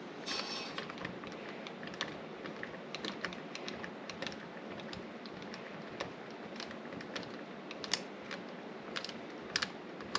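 Light, irregular clicks and small metal taps of a Phillips screwdriver being turned by hand to back a door-knob mounting screw out, with a short rattle just after the start.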